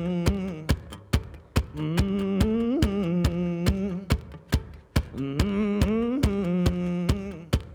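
Live band music without vocals: a lead melody with sliding, bending notes over a steady percussive beat of about three hits a second.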